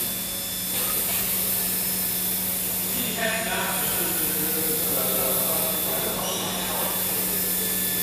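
Steady machinery noise: an even hiss with a low hum underneath, and faint voices in the middle.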